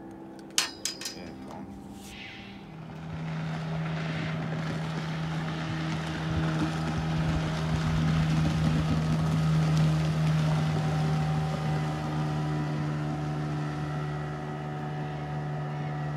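Motorboat engine running steadily on the water, growing louder for several seconds and then easing off slightly, as of a boat going past. A few sharp clicks come about half a second in.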